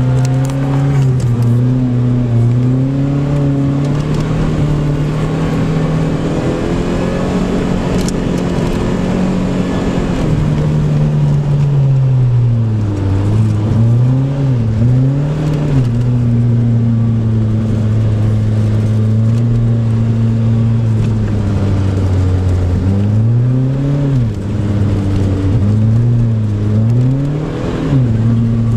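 Car engine heard from inside the cabin while driving over snow. The engine note holds steady for a while, then rises and falls several times as the driver revs and eases off, once around the middle and again near the end.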